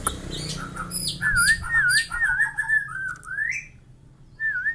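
Javan myna calling: harsh, noisy calls in the first second, then a quick run of about five dipping whistled notes, a rising whistle, and three more dipping notes near the end.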